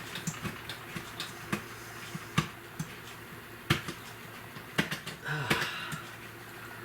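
Small hand tool clicking and tapping against the loose wire terminal screws of a 12-volt outlet as they are tightened: irregular sharp little clicks, with a short rustle a little after five seconds.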